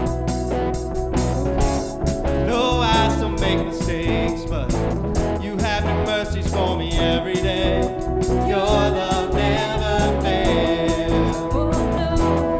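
Live worship band playing, with guitar, bass and a steady drum beat; a voice begins singing the melody about two seconds in.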